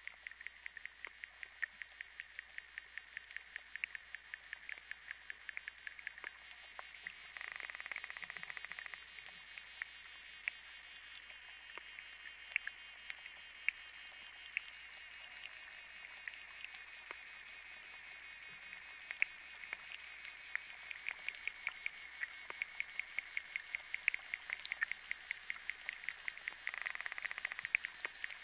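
A steady, rhythmic animal chorus of chirps, about four ticks a second, with two brief louder buzzing stretches, one about seven seconds in and one near the end.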